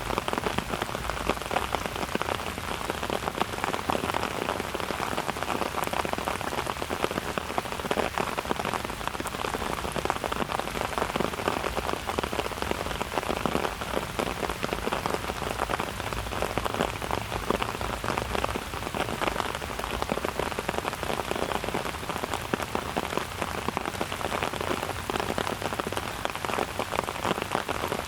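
Steady rain falling on surfaces: an even, dense patter of many drops.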